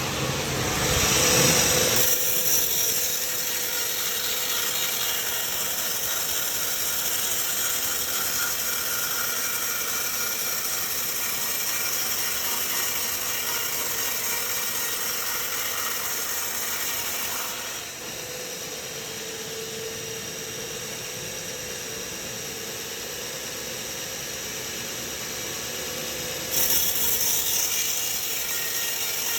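Sawmill machinery running as a saw cuts through a log, a continuous mechanical din with some rattling. It is loudest in the first two seconds, steps down about two-thirds of the way through, then jumps louder again near the end.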